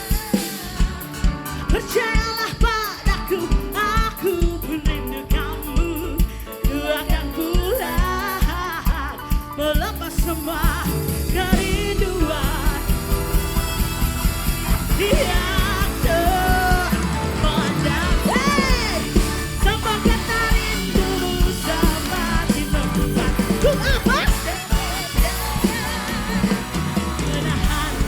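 Live band playing a dangdut song: a steady drum beat and bass, with a wavering lead melody over them. The band fills out about ten seconds in.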